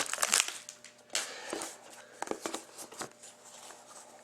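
Crinkling and rustling of a trading card box's packaging and wrapper being handled, with light taps. It is busiest in the first half second, then comes in scattered crinkles and ticks and fades near the end.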